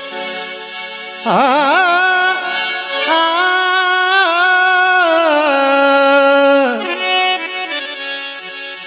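Male voice singing a long held note with a wide vibrato over a steady harmonium drone. The voice enters about a second in and slides down and drops out near seven seconds, leaving the harmonium alone near the end.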